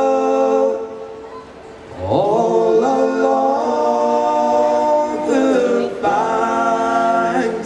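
Group of men singing an Irish folk ballad unaccompanied in close harmony, holding long drawn-out chords. One swells in about two seconds in and a second follows just after the middle.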